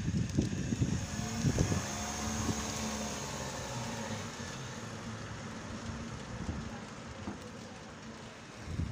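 A car's engine running and fading as the car moves away, after a burst of wind buffeting the microphone in the first second or two.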